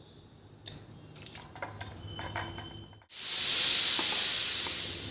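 Light clinks of kitchen utensils, then a sudden loud sizzle, as of food going into hot oil, for about two seconds before it fades.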